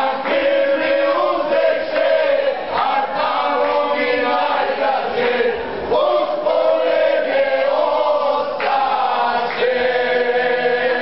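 A group of men singing together loudly in Croatian folk style, holding long notes through each phrase with short breaks for breath.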